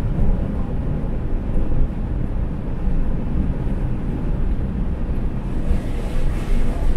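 Steady road noise heard from inside a campervan's cab while it cruises on a highway: a low rumble of tyres and engine, with a hiss that grows near the end.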